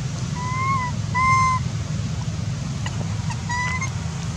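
Three short, clear coo calls from a macaque, each a slightly arched tone: two in the first second and a half, a third about three and a half seconds in. A steady low hum runs underneath.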